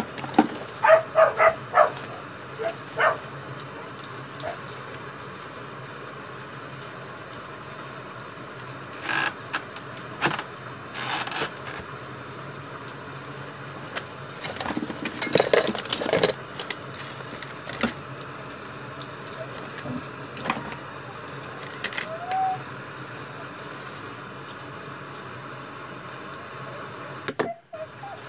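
Wood fire crackling over a steady hiss, with scattered sharp pops and snaps at irregular intervals, heaviest near the start and around the middle.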